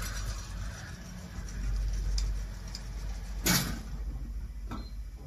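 Automatic wire mesh welding machine running with a steady low hum, with a short burst of noise about three and a half seconds in and a fainter one about a second later.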